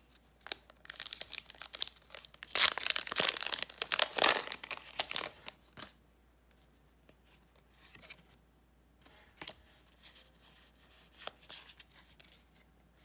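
A Pokémon card booster pack wrapper being torn open and crinkled for several seconds, then quieter rustling and clicks as the cards inside are handled.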